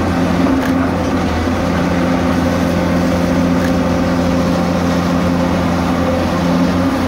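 Diesel engine and hydraulics of a long-reach demolition excavator running steadily with a low hum, as the machine works its grab on the rubble. There are a couple of faint knocks, one about a second in and one near the middle.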